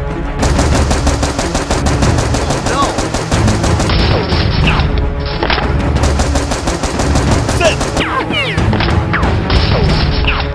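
Rapid automatic gunfire sound effects, a dense run of shots many per second, over action background music.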